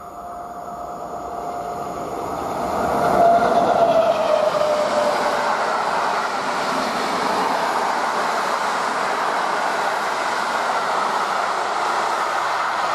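Electric locomotive (EU07) hauling Intercity passenger coaches, approaching and passing close by. The rail noise builds, a whining tone falls in pitch about three to five seconds in, and then the coaches' wheels keep up a steady rolling noise on the track.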